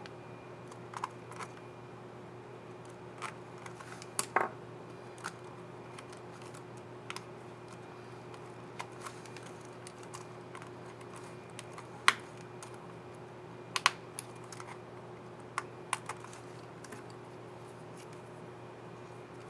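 Irregular small plastic clicks and snaps of a laptop keycap and its scissor mechanism being fitted and pressed on an HP Envy x360 15-bp keyboard, the sharpest about twelve seconds in, over a steady low hum.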